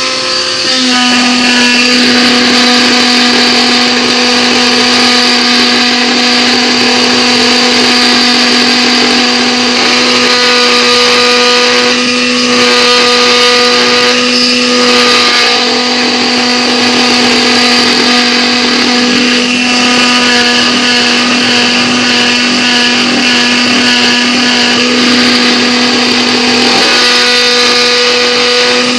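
Proxxon MF-70 mini milling machine under CNC control, its spindle motor running with a steady whine while the cutter machines 3 mm acrylic sheet. The pitch shifts slightly about a second in and again near the end.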